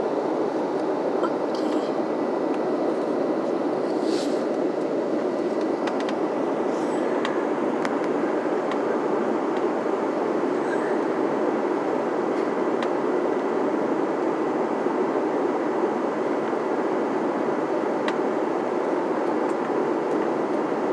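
Steady rushing cabin noise of a jet airliner in cruise flight, with a few faint clicks.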